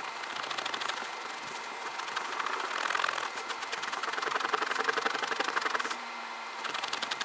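Cloth pad rubbing metal polish over a chrome-plated trim plate in quick back-and-forth strokes, a fast scratchy swishing that briefly stops about six seconds in.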